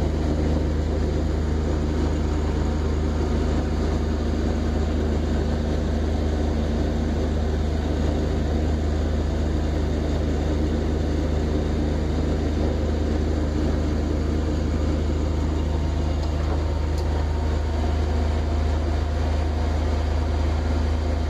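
A 1959 steel trawler's engine running steadily underway, a constant low drone with a steady hiss of water passing the hull.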